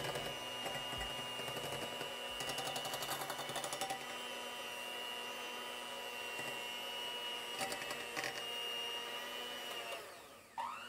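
Kenwood electric hand mixer whirring at a steady speed as its beaters whip cream in a bowl, with a couple of stretches of rapid clicking. Near the end the motor winds down and then speeds back up.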